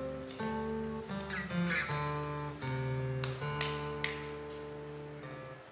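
Acoustic guitar playing an instrumental passage with no singing: picked notes and chords ring out one after another, growing quieter near the end.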